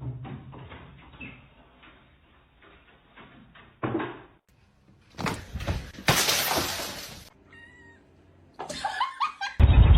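Domestic cat sounds across several short clips, including a brief meow about eight seconds in, between short bursts of noise.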